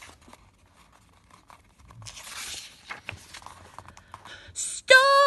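A paper picture-book page being turned and the book handled: a soft paper rustle about two seconds in, then small taps and scrapes. Near the end, the loudest sound: a woman's voice crying a drawn-out "Stop!"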